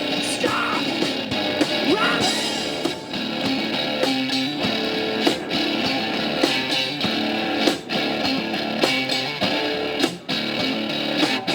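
Live blues-rock duo playing an instrumental passage: electric guitar over drums, with a strong drum hit about once a second.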